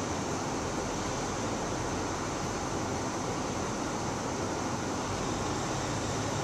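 Steady, even rushing ambient noise at a calm beach, with no distinct events. A low hum comes up about five seconds in.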